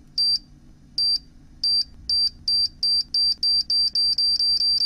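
Electronic beeps from a countdown intro sound effect, all at one high pitch. They start slow, under one a second, then speed up steadily to several a second until they almost run together near the end.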